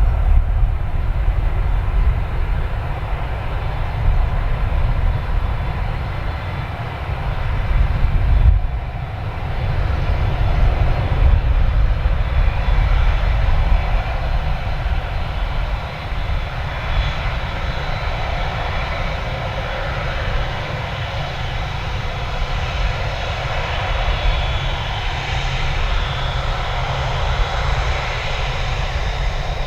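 Airliner's jet engines running, a steady low rumble with a higher whine that grows stronger about halfway through.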